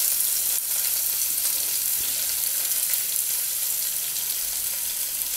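Chopped onions sizzling steadily as they go into hot oil with cumin seeds and chillies in a frying pan.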